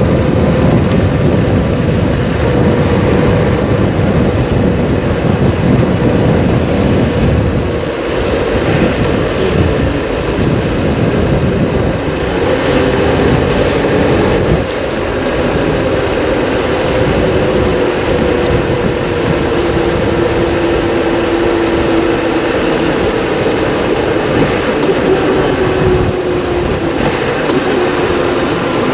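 Triumph Explorer 1200 motorcycle riding along, its three-cylinder engine running under a heavy roar of wind and road noise. The engine note sinks slowly through the second half, and the sound eases slightly about eight and fifteen seconds in.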